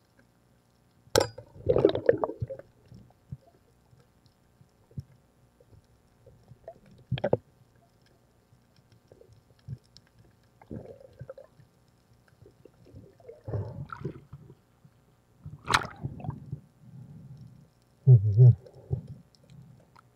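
Muffled underwater bubbling and gurgling with irregular gaps, and three sharp knocks: about a second in, around seven seconds, and around sixteen seconds. A louder low gurgle comes near the end.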